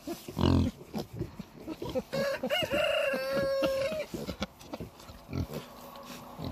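A rooster crows once, a call of about two seconds that rises and ends on a long held note, over short grunts and snuffles from pigs close by. A loud, short pig grunt comes about half a second in.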